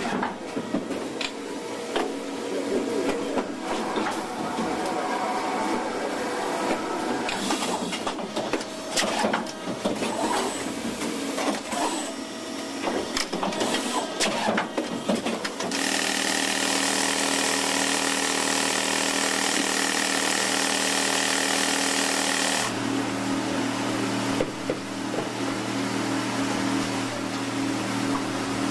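Banknote finishing machinery running as it stacks and bundles notes. For the first half it is a busy, rapid clatter of many small clicks. About halfway through it settles into a steady machine whir with a high, even whine.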